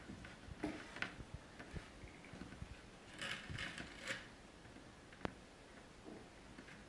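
Faint handling sounds of plasticine being kneaded and shaped by hand on a table: scattered small clicks and taps, a short stretch of rustling about three seconds in, and one sharper click a little after five seconds.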